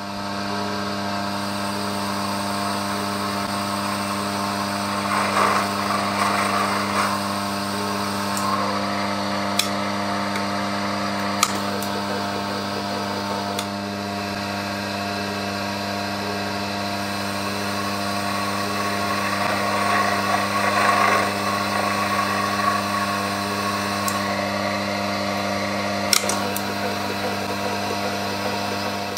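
Axminster Sieg mini lathe running under power feed, its motor giving a steady hum and whine. A scratchy cutting sound swells twice, and there are a few sharp clicks.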